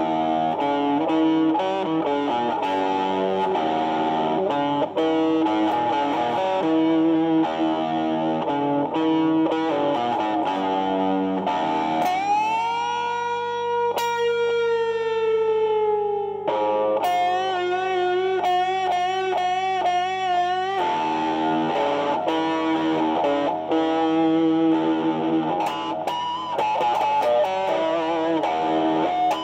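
Electric guitar with a Stratocaster-style body playing blues lead lines. About halfway through comes a long sustained note that sags slightly in pitch, followed by a note held with wide vibrato before the picking resumes.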